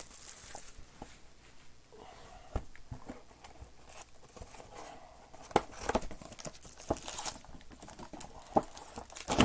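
Crinkling and rustling of hands handling foil card packs and trading cards, with scattered light taps and clicks, the loudest a few about halfway through.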